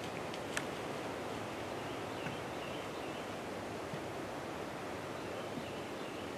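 Steady outdoor background hiss in woodland, with a light click about half a second in and a few faint, short high chirps scattered through.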